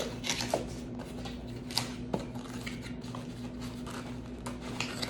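Scattered rustling and light clicks of a gift's packaging being handled and opened, over a steady low hum.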